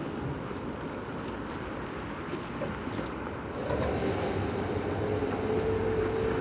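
Harbour ambience of wind and water noise with a low rumble. A little past halfway an engine comes up and holds a steady hum.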